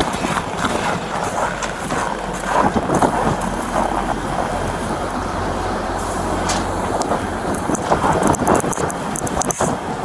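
Wind buffeting a body-worn camera's microphone, with footsteps crunching through snow and gear rustling as the wearer walks. A steady low hum sets in about two seconds in.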